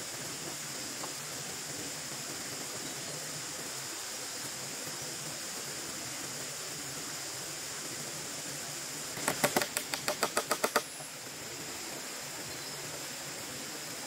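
A quick run of about a dozen sharp taps of a hand tool on bamboo, lasting about a second and a half a little past halfway through, over a steady high insect drone.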